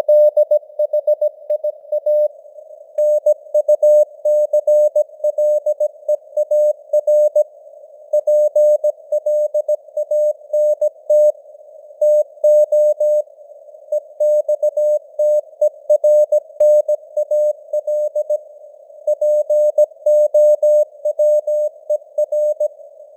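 Morse code (CW) sent at 17 words per minute as a single keyed tone, dots and dashes in a steady pattern, over simulated radio receiver hiss. The signal strength rises and falls in simulated fading (QSB).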